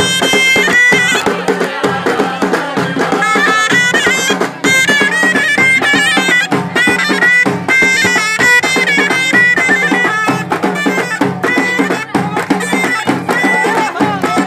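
Ghaita, the Moroccan double-reed shawm, playing a high melody that moves in steps, over a steady beat of hand drums and hand-clapping.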